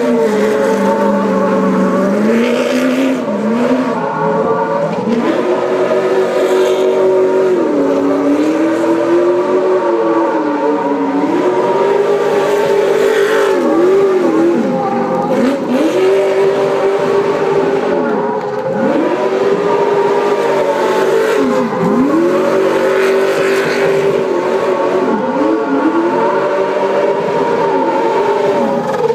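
Hummer H3 rally-raid truck's engine revving hard while spinning donuts: the pitch is held high, then dips and surges back again and again as the throttle is lifted and reapplied, with tyre scrub over it.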